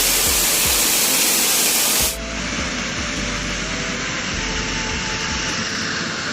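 Steady, loud rushing hiss of outdoor noise that changes abruptly about two seconds in to a duller, steadier rush with a few faint held tones.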